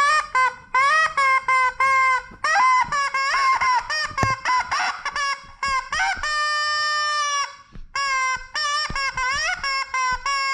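Yellow rubber chicken squeezed over and over, giving a rapid string of short, high honking squawks. One long drawn-out squawk comes in the middle, and a few near the end glide upward in pitch.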